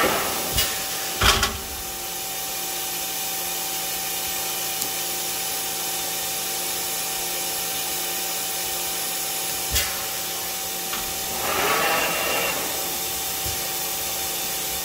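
Mori Seiki MT-1500SZ CNC turn-mill center running, a steady hum and whine of its motors and axis drives. Two sharp clunks come about a second in, another about ten seconds in, and a short rushing swell with a brief high tone follows around twelve seconds.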